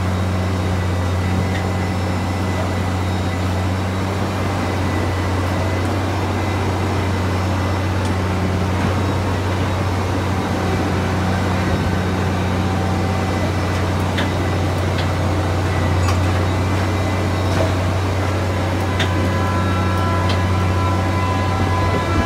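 Track-laying machine's engine running with a steady low hum, with a few faint metallic clicks.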